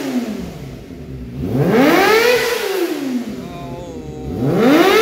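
Kawasaki ZX25R's 250 cc inline-four engine being revved in neutral through an aftermarket Akrapovic carbon exhaust. The revs fall away at the start, rise and fall once in the middle, and climb again near the end.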